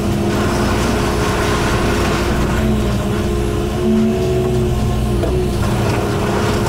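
Diesel engine of a 40,000-pound John Deere excavator running steadily under load as its bucket pushes and pulls at a wood-framed house corner. Breaking wood and falling debris crunch over the engine.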